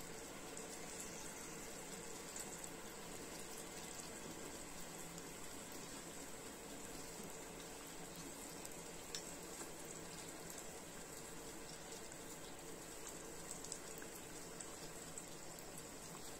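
Buns frying in shallow oil in an electric pot: a quiet, steady sizzle and bubbling, with a few faint clicks from bamboo chopsticks turning them.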